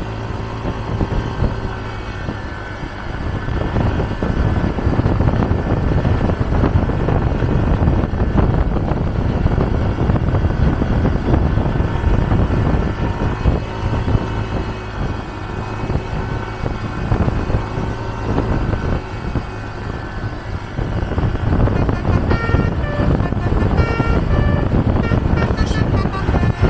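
Steady road and wind rumble from travel on the highway. In the last few seconds, a tour bus's basuri-type telolet musical horn plays a quick run of short notes at different pitches.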